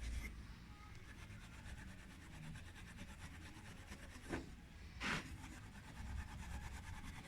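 Faint rubbing as the mended metal candelabra arm is polished by hand, with two short louder strokes about four and five seconds in.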